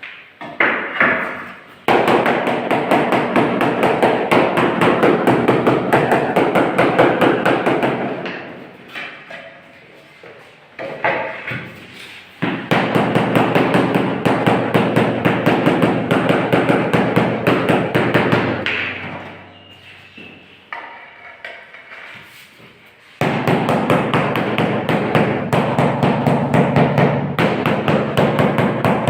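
A power tool on a tiling job running in three bursts of about six seconds each, with a fast, even hammering rattle over a motor hum. Each burst starts abruptly and dies away slowly as the tool winds down.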